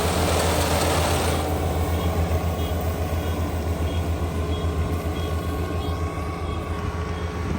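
Kubota ER572 combine harvester's 72-horsepower engine running steadily with a low hum. A rushing noise over it drops away about a second and a half in.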